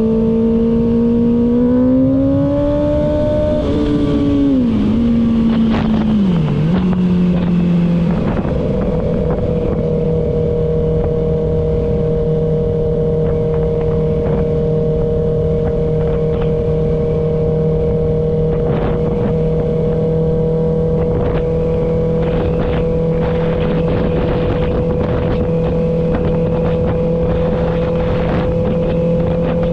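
Kawasaki ZX-6R's inline-four engine under way: the revs climb briefly, drop quickly twice as gears change, then hold a steady engine note while cruising, with wind rush underneath.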